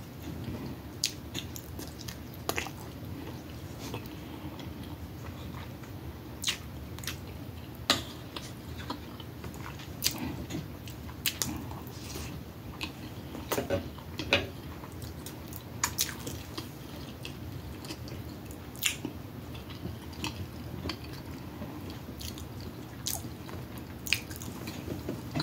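Close-miked eating of smoked sausage and rice: irregular wet smacks and clicks of chewing and biting over a steady low hum.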